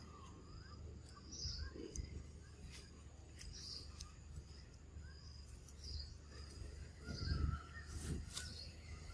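Forest ambience: birds chirping on and off over a steady high insect drone, with a few sharp clicks. A louder low rumble comes about seven seconds in.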